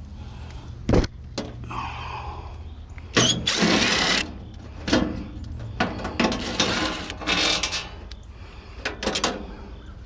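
Sheet-metal control panel of an outdoor air-conditioner condenser being unscrewed and lifted off: a sharp knock about a second in, then several bursts of metal scraping and rattling, the loudest a little past three seconds in.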